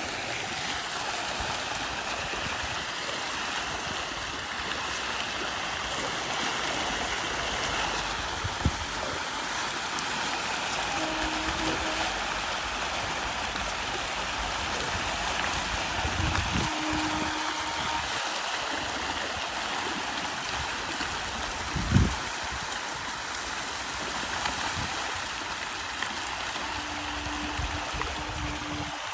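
Steady rushing and splashing of fish-pond water, with a sharp knock about nine seconds in and a louder one about 22 seconds in.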